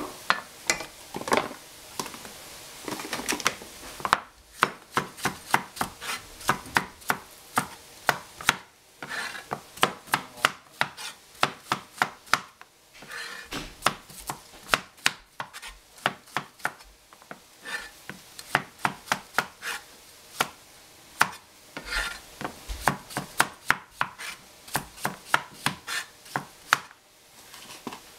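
Chinese cleaver chopping yellow squash and zucchini on a thin plastic cutting board: runs of sharp knife taps, about three a second, with short pauses between runs. The chopping starts about four seconds in, after some softer handling of the vegetables.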